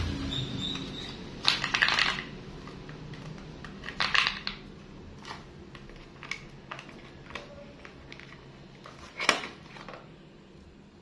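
Cardboard phone-box packaging being handled: short scrapes, rustles and taps of the inner tray and lid, loudest in brief clusters about a second and a half in, around four seconds, and just after nine seconds, while a phone charger is lifted out of its compartment.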